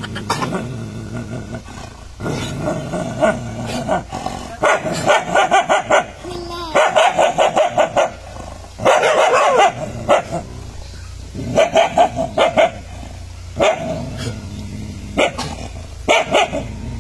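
Dogs barking and growling at their own reflection in a mirror, in bursts of rapid barks, about four a second, with short pauses between them. One longer, drawn-out bark or growl comes about nine seconds in.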